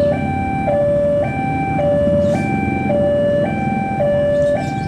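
Railway level-crossing warning alarm sounding a repeating two-tone signal, switching between a higher and a lower tone about every half second to warn of an approaching train. Under it runs the low rumble of a diesel locomotive engine working slowly up the grade.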